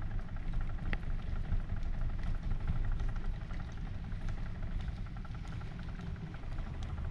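Fishing boat's motor running steadily, a constant low drone with an even engine hum.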